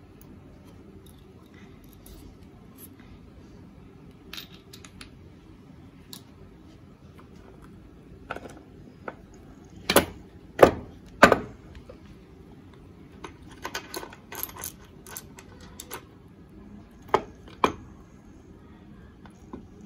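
Metal gears, shafts and spanners clinking and clicking against an open Demak 90 motorcycle crankcase as the parts are handled. Scattered light clicks, with three sharper clanks in quick succession about halfway through and a few more clusters of clinks later.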